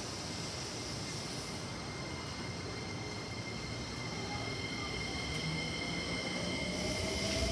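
Electric commuter train running through the station, with a motor whine that rises in pitch from about five seconds in as the train gathers speed.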